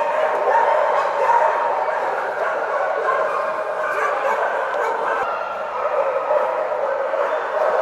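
Many shelter dogs barking and whining at once, a continuous overlapping din with no let-up.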